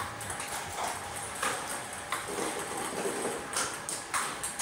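Table tennis rally: irregular sharp knocks of the celluloid ball on paddles and the table, roughly one to two a second, over a faint steady whine from the Gorilla ball robot's feeding motor.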